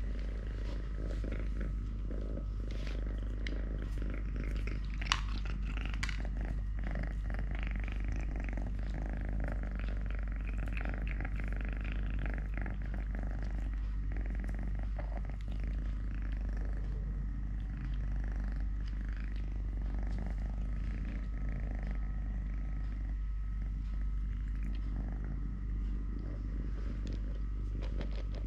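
Domestic cat purring steadily, with a single sharp click about five seconds in.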